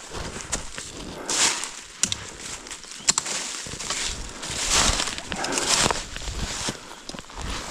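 Footsteps of a hiker crunching through dry forest leaf litter, a step every second or so.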